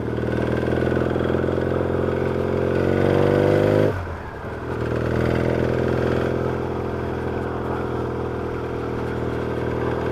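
Yamaha XS650 chopper's air-cooled parallel-twin engine running on the road, its pitch rising slightly as it pulls. About four seconds in it drops away briefly, then settles back into a steady note.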